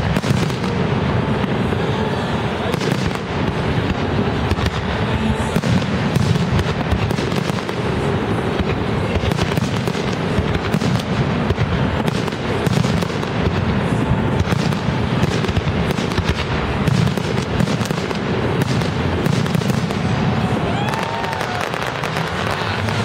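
Professional fireworks display: a rapid, continuous barrage of aerial shells bursting, with a steady crackle of many overlapping bangs.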